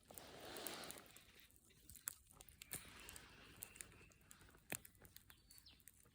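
Faint campfire crackling: scattered sharp pops and snaps from the burning wood, with a short rustling hiss in the first second.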